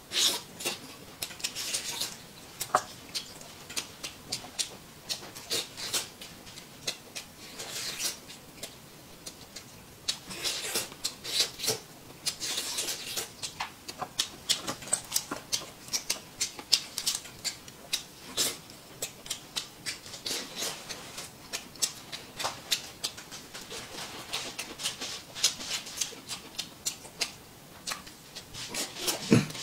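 A man eating roast chicken with his hands: irregular close-up chewing, lip-smacking and gnawing on the meat, a scatter of short wet clicks and smacks.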